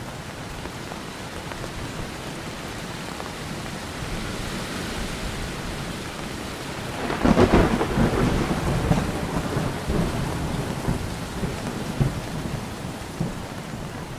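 Steady monsoon rain, with a clap of thunder about halfway through that rumbles and crackles on for several seconds as it fades.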